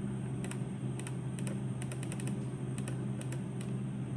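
Irregular clicks of keys being pressed on a computer keyboard, some in quick runs, while a G-code line is being edited, over a steady low hum.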